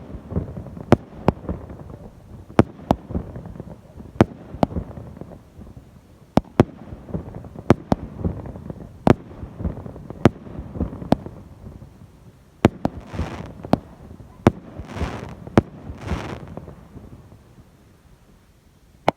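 Fireworks going off: a run of sharp bangs, about one to two a second, with rumbling echoes between them. In the second half come a few seconds of hissing, and the bangs die down near the end.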